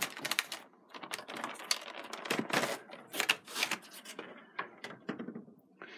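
Hard plastic toy keys and their plastic packaging tray being handled: a quick, irregular run of clicks and clatters, thinning out near the end.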